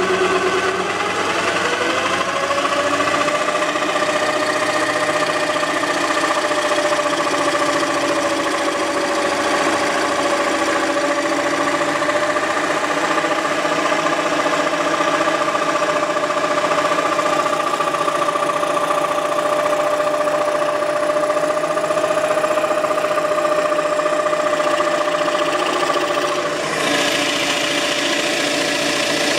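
Electric jigsaw driving the blade of a homemade scroll saw, with the saw mounted upside down under the table, running steadily as a thin wooden board is fed through the cut. Its whine rises in pitch about a second in and then holds level. Near the end the sound turns brighter and hissier.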